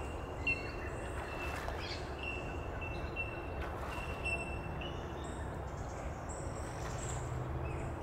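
Wetland ambience: a bird repeats short, flat, high notes about twice a second, stopping around five seconds in, over a steady low rumble.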